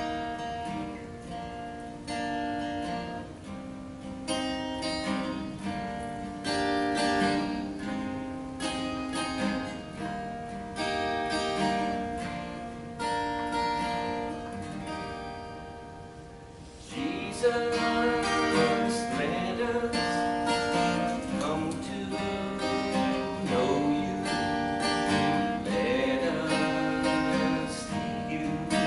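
Acoustic guitar playing an instrumental break in a gospel song, strummed and picked. Past the middle the music gets louder and a wavering melody line joins in.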